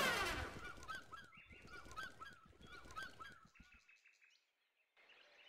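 A quick string of about a dozen short, faint honking calls from a flock of geese in flight, about four or five a second, coming in about a second in as the music fades out.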